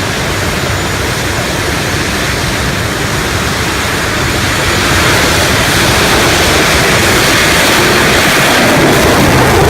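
English Electric Lightning's twin Rolls-Royce Avon turbojets running at high power with a loud, steady rushing roar that grows louder about five seconds in.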